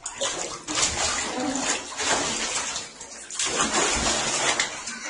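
Tap water running and splashing over a cat being washed in a basin, easing off briefly about three seconds in before running on.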